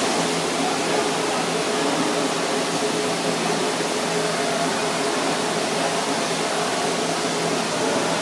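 Steady rushing kitchen machinery noise with a faint low hum running under it, like a ventilation fan.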